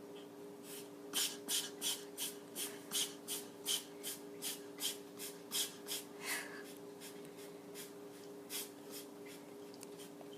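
A pet breathing in quick, noisy puffs, about three a second for some six seconds, then stopping, with two faint puffs a little later. A steady low hum runs underneath.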